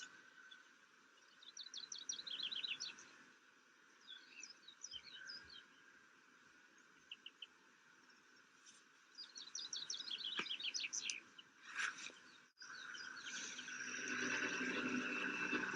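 Wild songbirds singing, several quick runs of short, high repeated notes a few seconds apart over faint outdoor background noise. After a sudden break near the end comes a louder, steady rushing sound with some held tones.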